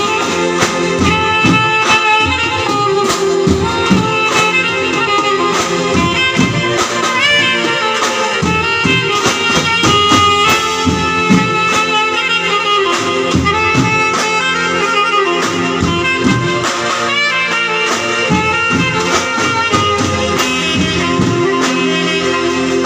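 Banjo party band playing live: a saxophone and keyboard melody over a drum kit and hand percussion keeping a steady beat.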